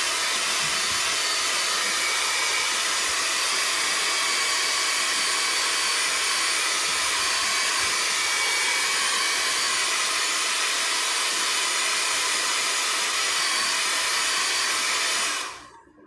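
Small handheld hair dryer running steadily, blowing hot air onto a phone screen to soften its adhesive: an even rush of air with a faint high whine. It is switched off and winds down less than a second before the end.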